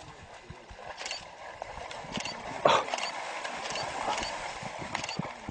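A large hoofed animal stamping and splashing through shallow water, giving a series of uneven, sharp splashy strikes. One much louder sharp sound comes about two and a half seconds in.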